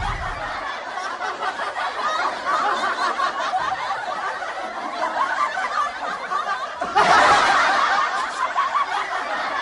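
Canned laughter: a laugh track of many people laughing and chuckling, swelling louder about seven seconds in.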